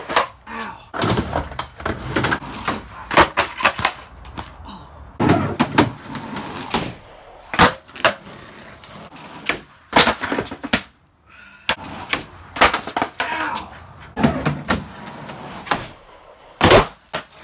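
Skateboard on concrete: wheels rolling, with the tail popping and the deck and wheels slapping down again and again as flip tricks are tried.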